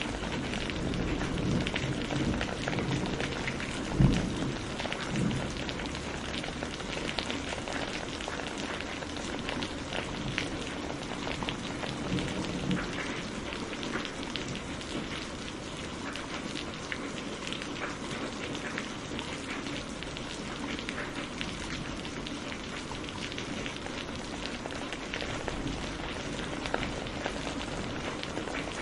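Steady rain falling, with thunder rumbling over the first few seconds and a sharp, loud thunderclap about four seconds in.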